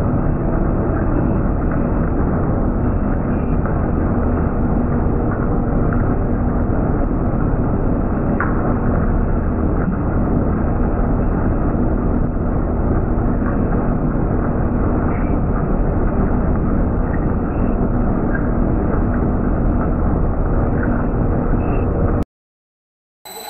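Metal lathe running under a turning cut: a loud, steady machine noise with a few faint ticks from chips. It cuts off abruptly near the end.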